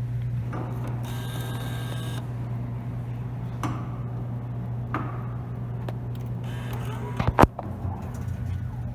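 Drink vending machine humming steadily, with a stretch of mechanical whirring, a few sharp clicks as money goes in, and a loud thud about seven seconds in.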